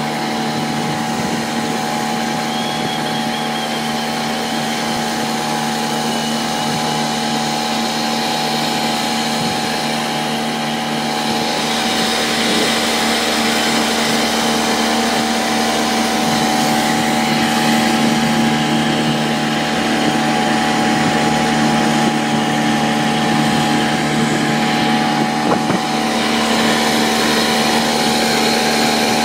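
Small outboard motor running steadily at speed, pushing a small boat along. It gets a little louder about eleven seconds in.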